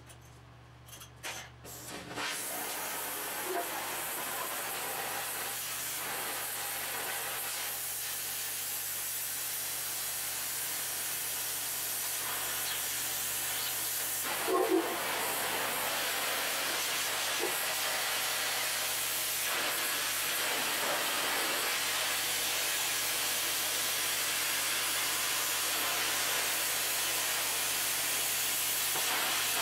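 Oxy-propane cutting torch cutting through quarter-inch steel plate: a steady hiss from the flame and cutting-oxygen jet. It starts about two seconds in, after a few short clicks, and has one brief louder spot about halfway through.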